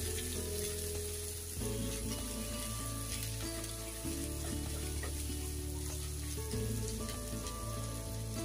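Diced capsicum and onion sizzling in hot oil in a non-stick pan, stirred and tossed with a spatula. Soft background music with slowly changing chords plays underneath.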